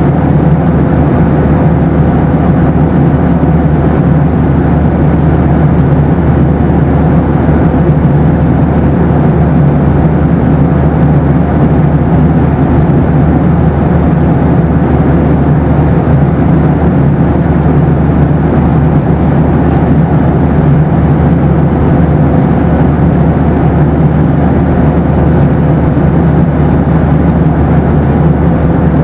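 Boeing 737 cabin noise in flight: steady, unchanging engine and airflow noise, heaviest in the low range, with a faint steady hum running through it.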